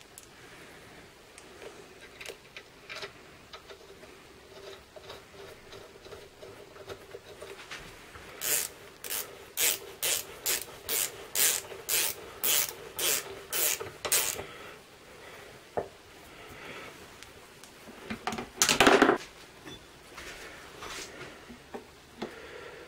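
Tightening the bolt and washer of a Citroën DS rear engine mount: about a dozen short ratcheting strokes, roughly two a second, in the middle. A louder, longer metal scrape follows a few seconds later, with quiet handling sounds around them.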